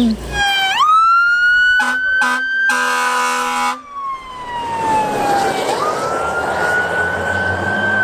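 Fire engine siren wailing: the tone rises, holds high, falls slowly and rises again. About two seconds in come two short horn toots, then a longer horn blast.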